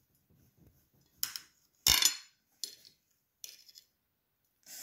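Table knife cutting a slice of soft orange sponge cake, with a few short scrapes and clinks of the blade against the plate; the loudest is a sharp clink with a knock about two seconds in.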